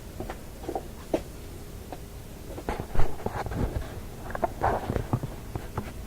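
Scattered light clicks, taps and rustles of hands handling small parts at a workbench, busier about halfway through, with a sharper knock around three seconds in.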